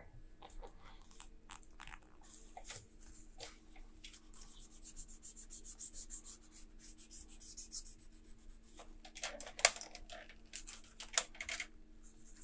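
Laptop keyboard keys being pressed and handled, a run of irregular small clicks with a louder cluster near the end. The keys are sticky with spilled sugared tea and some no longer press properly.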